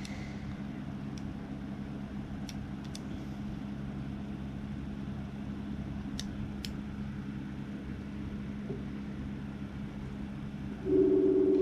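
Steady low hum of a fan or air conditioner with a few faint clicks. Near the end a phone goes off with a loud buzzing tone for about a second as a call comes in.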